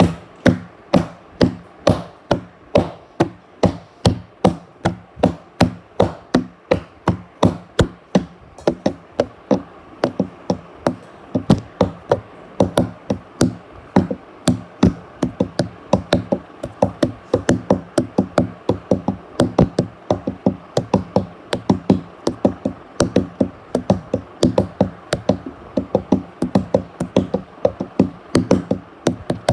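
Steady, regular banging: sharp knocks a little over two a second, over a steady low hum.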